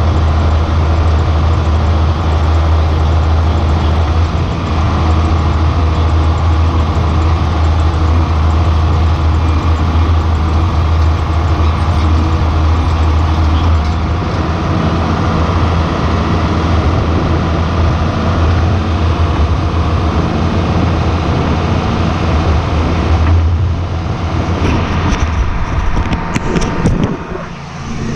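John Deere 4440 tractor's six-cylinder turbo-diesel running steadily under load while pulling a planter, a loud even drone. Near the end the drone changes and there are knocks and rubbing from the camera being handled.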